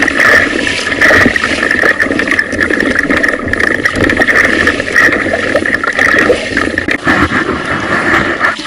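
Loud rushing and splashing of choppy sea water against a fishing kayak's hull, mixed with wind on the kayak-mounted camera's microphone.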